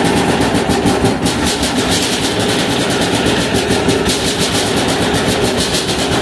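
186FA single-cylinder air-cooled diesel engine running at a steady speed, its firing strokes coming in a fast, even beat. It is burning 10W-30 synthetic-blend motor oil as its fuel.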